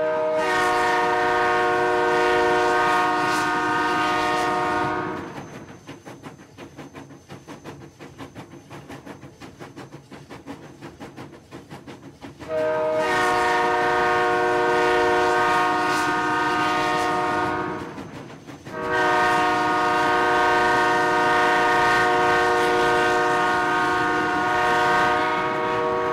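Train horn sounded in three long blasts: one of about five seconds, then after several seconds of the train rumbling along the rails, two more long blasts separated by a brief break.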